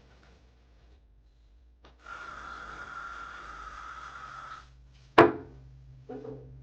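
A steady hiss lasting about two and a half seconds, then a single sharp knock, the loudest sound, and a softer knock near the end.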